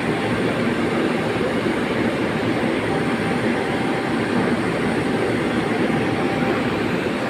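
Fire furnace burning with a steady rushing noise and a faint steady tone in it.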